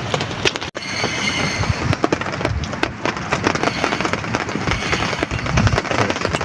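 Heavy rain pattering hard and unevenly, a dense crackle of drops.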